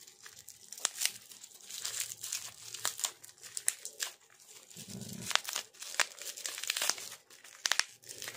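Bubble wrap and clear packing tape crinkling and crackling in the hands, in irregular sharp crackles, as the tightly taped seal is picked at and peeled.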